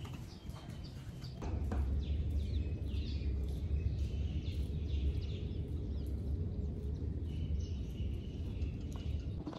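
Small birds chirping now and then, over a steady low rumble that comes in about a second and a half in and is the loudest sound.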